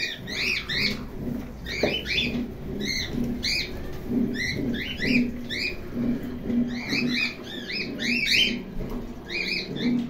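Pet parrots chirping: short rising-and-falling chirps, often in quick pairs, several a second, over a low hum.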